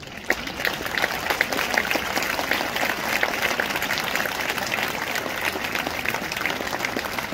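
Audience applauding an orchestra at the end of a piece: many hands clapping densely and steadily.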